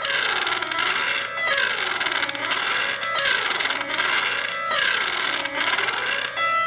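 Piano chords from the Perfect Piano app, several in a row, played through a Google Pixel phone's built-in speaker at full volume and breaking up into loud popping, crackling static: the speaker distortion fault that shows when many keys are played at once. The sound cuts off near the end.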